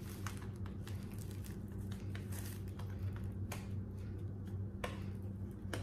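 Stiff white plastic panels of a bag dispenser being handled and fitted together: light rustling with a few sharp plastic clicks, the clearest in the second half, over a low steady hum.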